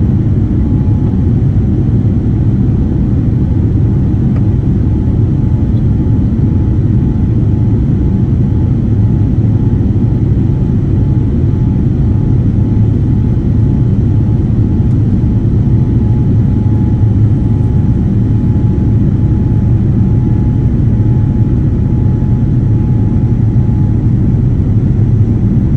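Steady low rumble of engine and airflow noise inside the cabin of a Boeing 787-9 airliner, with a faint steady tone above it. It holds an even level throughout.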